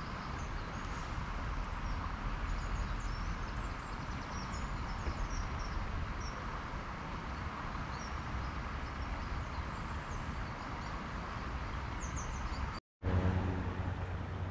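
Steady outdoor background rumble, like distant road traffic, with faint high chirps of small birds scattered through it. The sound cuts out completely for a moment near the end.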